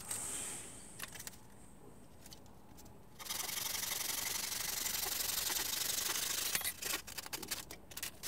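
Hand sanding a 12 mm plywood board with a sanding pad: a steady rasping rub for about three seconds, from about three seconds in. A few light knocks and clicks follow near the end.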